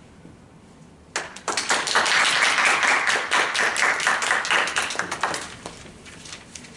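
A small group of people applauding, breaking out about a second in and dying away after about five seconds.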